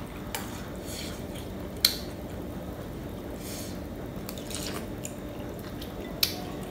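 Metal spoon and fork clinking against a ceramic bowl of noodle soup a few times, the sharpest clink about two seconds in, over a low steady hum.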